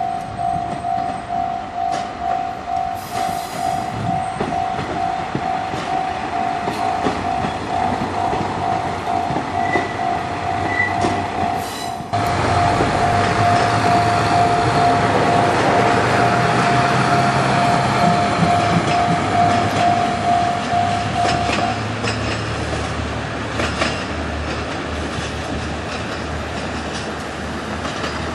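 Railway level-crossing bell ringing in a rapid, even pulse, stopping about three-quarters of the way through. A KiHa 185 series diesel multiple unit runs past with engine rumble and wheel noise on the rails, which get suddenly louder about halfway through.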